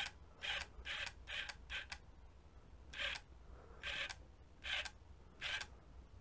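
Small 12V linear actuator run on a 9V battery, pushing the plunger of an electric caulking gun in short whirring bursts as its switch is rocked on and off to meter the caulk: about two bursts a second at first, then about one a second.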